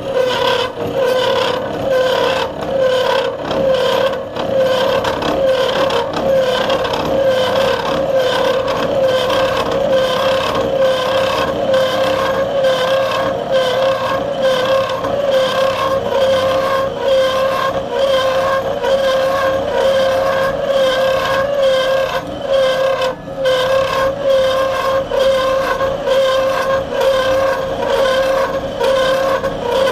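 Bridgeport milling machine running a 3/16-inch disc milling cutter through a metal workpiece during a cut: a steady whine at one pitch with overtones and a slight quick flutter, briefly dipping about 23 seconds in.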